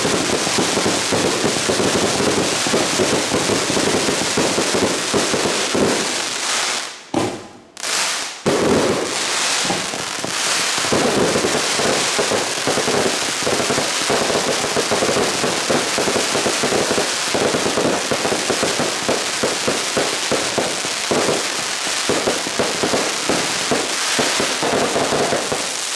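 Karakuri (mechanical) fireworks going off continuously, a dense hissing crackle of many small reports. It breaks off briefly about seven seconds in, then resumes.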